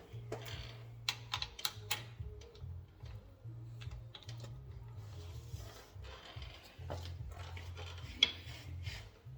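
A run of sharp clicks and taps, with a louder click about eight seconds in, over quiet background music with a bass line.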